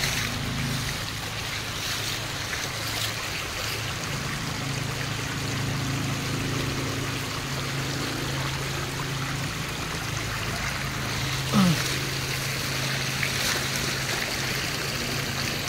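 Floodwater running and trickling over a broken road edge, with a steady low hum underneath. A brief pitched call rises and falls once, about two-thirds of the way through, the loudest moment.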